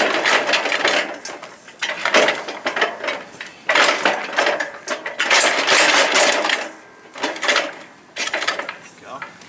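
Rapid metallic rattling and clattering in several bursts of a second or so each, from work on the aluminium boat hoist frame and its post fittings.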